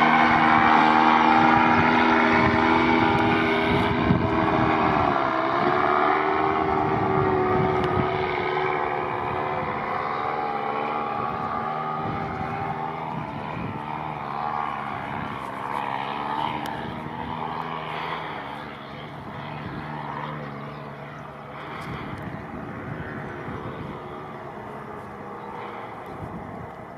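Small propeller aircraft engine droning, its pitch dipping briefly about five seconds in, then fading steadily as it moves away.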